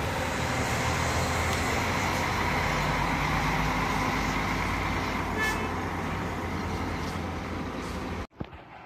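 Intercity coach engine running with a steady low hum as the coach drives off, with a short high toot about five and a half seconds in. The sound cuts off suddenly near the end.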